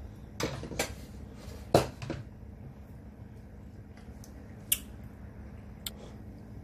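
A few short clinks and knocks of a plate and utensils being handled. The loudest comes about two seconds in, and two more fall near the end, over a faint steady hum.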